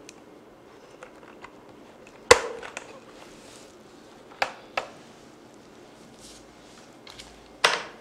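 Hard plastic knocks and clatter as a mechanical keyboard with a snap-on plastic cover is handled and lifted out of its cardboard box. There is a sharp knock about two seconds in, two lighter ones around four and a half seconds, another near the end, and a few faint clicks in between.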